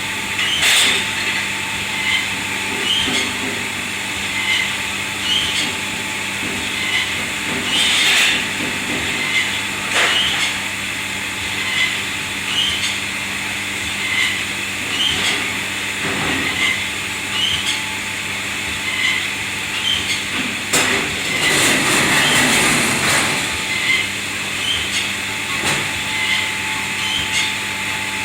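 Kitchen machinery running steadily with a hiss and a low hum, and a soft tick repeating about every three-quarters of a second. Now and then there is a clatter or knock of dishes and metal, loudest about two-thirds of the way through.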